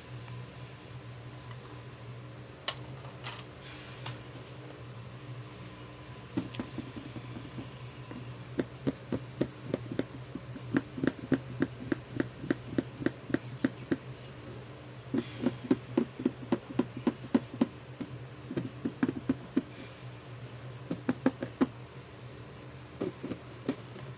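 Fingers tapping on the hollow plastic lid of a toy storage box, in quick runs of even taps, several a second, with short pauses between the runs.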